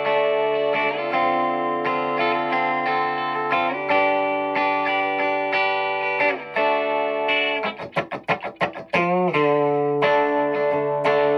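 Electric guitar playing sustained, ringing chords through a Donner Verb Square Evolution+ pedal set to spring reverb, while its settings are swept from off to full and back. About eight seconds in comes a short rapid fluttering passage with quick dips in level, after which the chords ring on.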